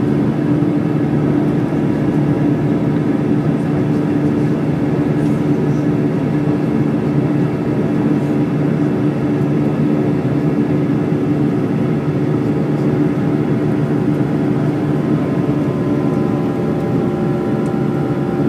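Airbus A320 twin jet engines running steadily at take-off power: a loud, continuous engine noise with a steady low hum. Near the end a few higher whining tones come in.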